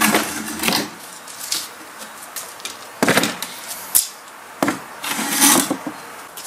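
Homemade folding plywood table being unfolded: wooden scraping and knocking as the hinged top opens and the legs swing out and are set down, in a burst at the start, another at about three seconds and a longer one around five seconds.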